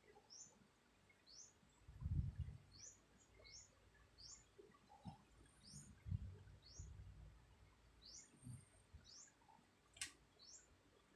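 A sleeping woman snoring faintly: low, rough swells a few seconds apart, the loudest about two seconds in. A bird chirps through it, short rising chirps about once a second. There is a single sharp click near the end.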